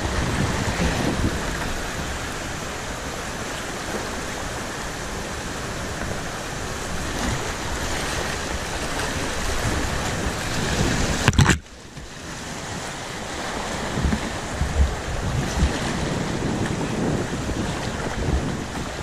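Rushing river water from a kayak running a shallow rapid, with wind on the microphone. About eleven and a half seconds in comes a loud splash, after which the sound is muffled.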